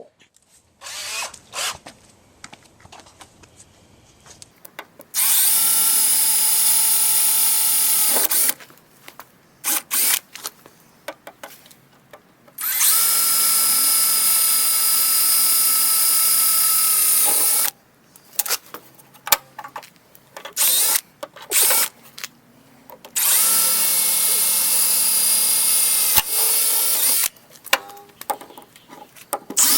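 Cordless drill drilling out the spot welds in a Toyota Sienna's steel door panel: three long runs of a steady whine, with short bursts of the drill between them.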